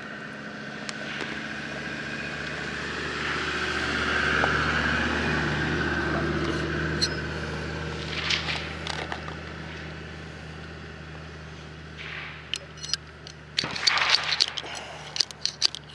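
A steady engine drone swells and then slowly fades over the first ten seconds or so. Near the end a steel ramrod scrapes and clicks as it is rammed down the barrel of a muzzleloading percussion pistol to seat the charge.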